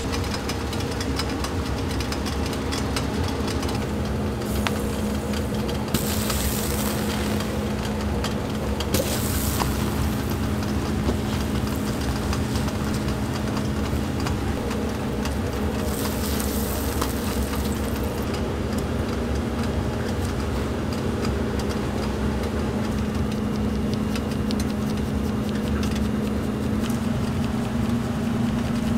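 Slices of buttered bread sizzling on a flat-top griddle over a steady low mechanical hum, with brief spells of louder hiss about six and sixteen seconds in.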